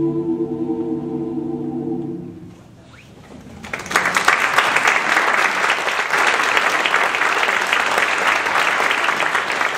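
A vocal ensemble holds its final chord, which dies away about two and a half seconds in. About a second later the audience breaks into applause.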